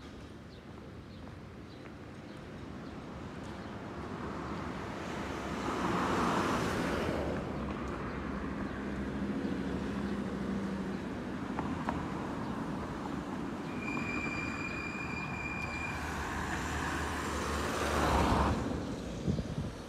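Street traffic passing close by: motor vehicles go past one after another, and the noise swells and fades twice, with a low engine hum between the passes. Near the three-quarter mark there is a brief high, steady squeal lasting about two seconds.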